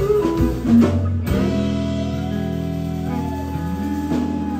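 Live country band with fiddle, acoustic and electric guitars and drums playing the end of a song: a quick run of notes, then about a second in the band lands on a long held chord that rings on under a sliding fiddle line, shifting again near the end.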